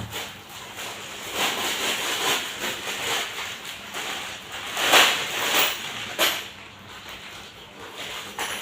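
Scraping and rustling noises of parts being handled, loudest about five seconds in, with a short click a little after six seconds.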